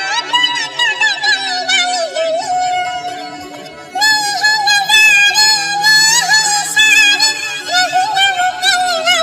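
Hindi pop song remix with a wordless, ornamented melody line that bends and wavers over sparse backing. It dies down about three seconds in and comes back fuller and louder at about four seconds.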